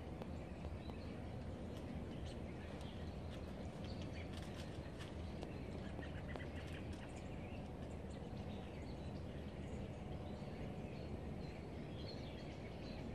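Outdoor yard ambience: a steady low rumble with faint, scattered short chirps and ticks above it.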